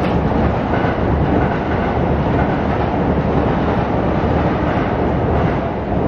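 Train running past on nearby tracks: a loud, steady rumble and rattle of wheels.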